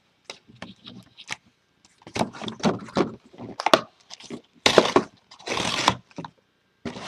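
Hands handling a Topps Chrome hobby box and its card packs: scattered clicks and taps of cardboard, with two louder bursts of foil-wrapper crinkling about two-thirds of the way through.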